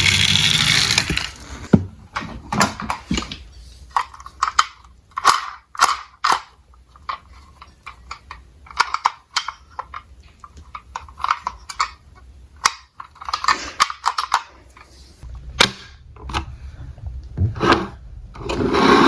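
Diecast toy cars clicking and clacking against each other and hard surfaces as they are handled, a long run of irregular sharp knocks. A rolling rumble of a toy car running down the slope dies away about a second and a half in, and another run starts building near the end.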